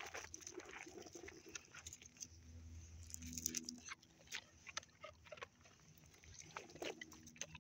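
Faint scuffing and clicking of a leashed dog and its walker moving on a gritty asphalt surface: paws, footsteps and leash, in many small irregular clicks. A low hum rises for about a second and a half near the middle.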